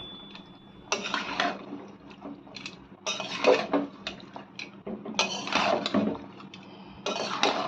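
Spatula scraping and stirring in a cooking pan, in separate strokes every second or two, as chickpeas are fried down with masala.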